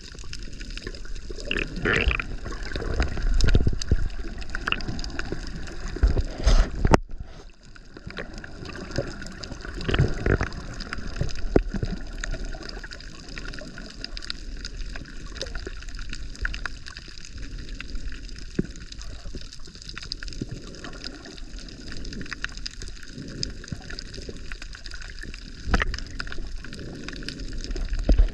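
Sea water sloshing and gurgling around the camera while snorkeling, in irregular surges. The sound drops away sharply for a moment about seven seconds in.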